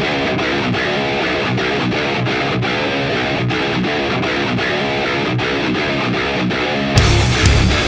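Heavy metal song intro: a fast, repeating electric guitar riff, then the full band comes in with heavy drums and bass about seven seconds in.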